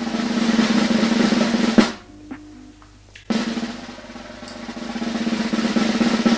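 Snare drum roll sound effect swelling in volume and ending on a sharp hit about two seconds in. After a short pause, a second drum roll starts and builds up again: suspense music for a tasting.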